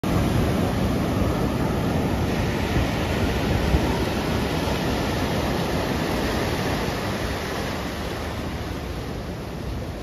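Ocean surf breaking and washing over the shallows: a steady rushing roar, heaviest in the low end, easing off a little over the second half.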